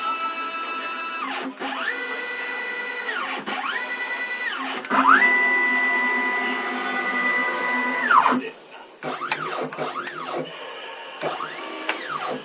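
CNC router's stepper motors whining as the axes move: each move rises in pitch as it speeds up, holds a steady tone, then falls as it slows. There are about five moves, the longest about three seconds in the middle, then a run of quick short moves near the end.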